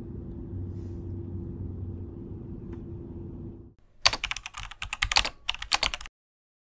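Keyboard typing sound effect: a quick, uneven run of loud key clicks about four seconds in, stopping abruptly about two seconds later. It is the sound for a title typing itself out on screen. Before it there is a steady low rumble of car-cabin road noise.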